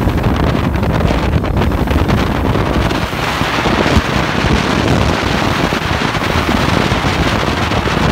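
Wind buffeting the microphone on a boat running at about 35 knots, with the boat's rush over the water underneath: a loud, steady rush with a heavy low rumble, growing brighter and hissier from about three seconds in.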